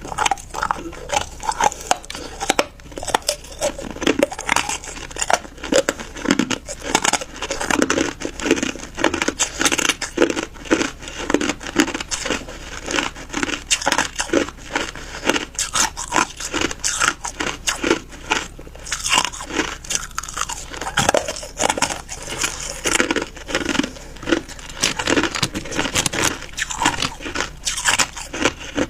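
Ice being bitten and chewed: a continuous run of loud, sharp crunches, several a second.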